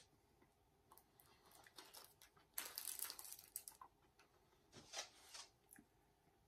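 Near silence broken by a crinkling rustle about two and a half seconds in that lasts about a second, and a shorter rustle near five seconds.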